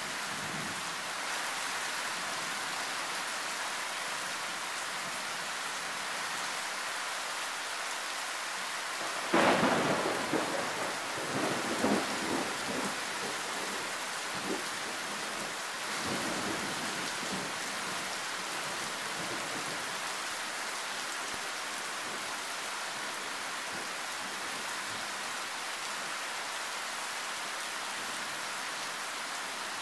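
Loud, steady rain from a thunderstorm. About nine seconds in, a sudden thunderclap cracks and rolls on in crackling rumbles for several seconds, with fainter rumbles after it, before the rain alone is heard again.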